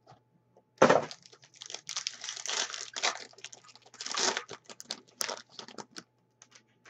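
Plastic wrapping crinkling and trading cards rustling as they are slid out of their packaging and handled, in irregular bursts, followed by a few light clicks near the end.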